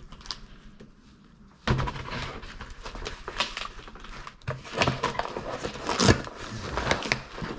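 A shipping package being opened by hand: irregular rustling and tearing of packaging with knocks and thumps, starting suddenly a little under two seconds in.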